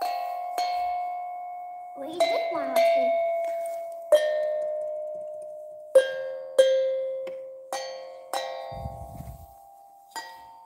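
Bell-like metallic dings, about ten at uneven intervals. Each rings out and fades over a second or more, at a few different pitches.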